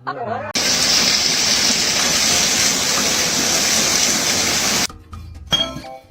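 A loud, steady rushing hiss that starts about half a second in and cuts off suddenly about four seconds later, followed by music.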